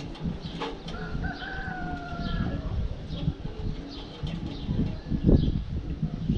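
Outdoor ambience with one long, slightly falling bird call lasting about a second and a half, starting about a second in, and short chirps scattered through. Under it runs an uneven low rumble with thumps, the loudest about five seconds in.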